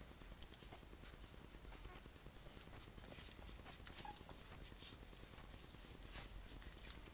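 Three-week-old Tibetan terrier puppies suckling from their mother: faint, irregular soft clicks and smacks of nursing, with a brief squeak about four seconds in.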